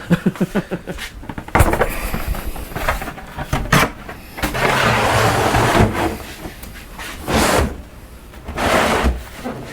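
Handling noises from a large fiberglass model-aircraft nose cone: a sharp knock, then scraping and rubbing as the shell is slid onto the fuselage for a test fit, with a few shorter bumps near the end.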